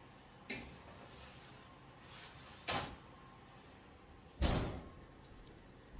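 Kitchen doors being shut: three short knocks, the last and heaviest about four and a half seconds in.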